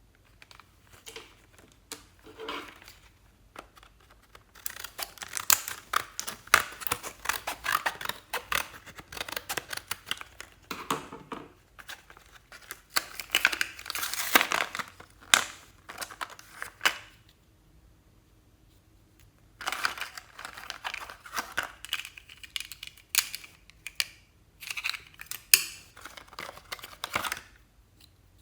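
Slime being kneaded and stretched by hand, making rapid wet clicks and crackling pops in two long spells with a short pause between.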